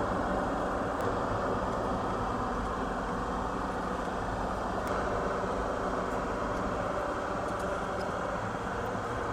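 Steady mechanical hum of a fan or ventilation unit, an even whooshing noise with a low drone under it and a few faint ticks.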